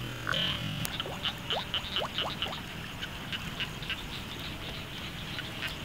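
Frogs calling, a chorus of short high chirps repeating several times a second, with a few short rising whistles in the first half.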